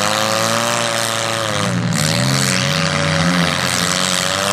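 Several demolition derby cars' engines revving hard together, their pitch swelling and falling as the cars push against each other, with a short drop just under two seconds in before they rev up again.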